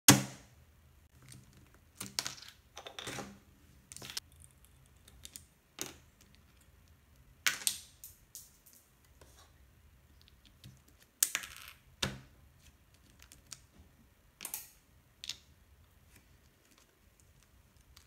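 Irregular plastic clicks, snaps and short scrapes of a 3x3 Rubik's-style cube being handled, a centre cap prised off and its layers turned. The sharpest click comes right at the start.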